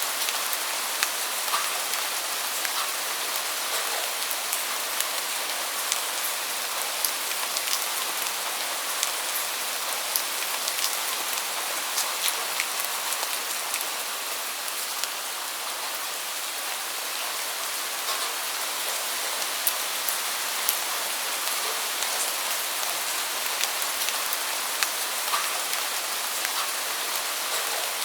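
Steady rain: an even hiss with many sharp, separate drop ticks scattered through it.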